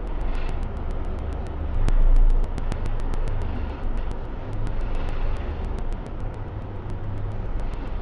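Bulldozer's diesel engine running with a steady low rumble, swelling louder for a moment about two seconds in, with a rapid light clicking over it.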